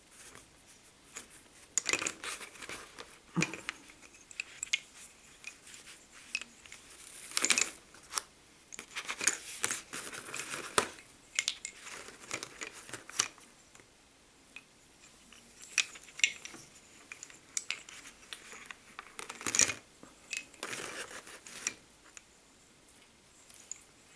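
Lace bobbins clicking against each other in irregular bursts, with soft thread rustling, as pairs are crossed and twisted in cloth stitch on a lace pillow.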